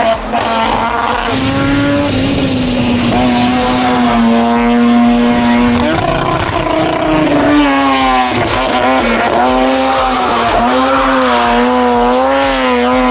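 Mazda 13B two-rotor rotary engine in a hill-climb race car running hard at high revs. Its buzzing note is held high and nearly steady, with brief dips and wobbles in pitch every few seconds.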